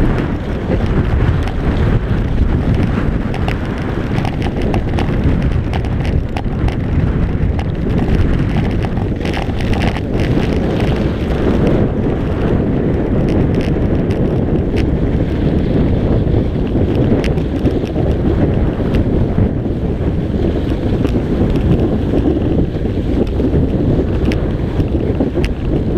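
Heavy wind buffeting a GoPro Hero 3's microphone while skiing fast, a steady low rush, with skis scraping and chattering over packed snow.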